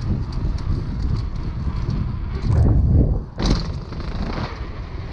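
Knobby tyres of a Rose Soulfire downhill mountain bike rolling fast over paving, with wind rumbling on the bike-mounted camera. One sharp knock comes about three and a half seconds in, as the bike reaches the stairs.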